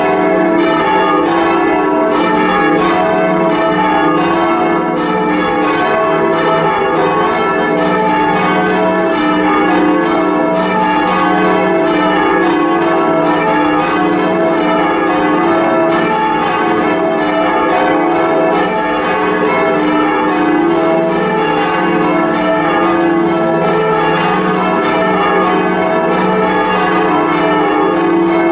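Church bells rung full circle in change ringing, the strokes overlapping into a continuous, loud ringing.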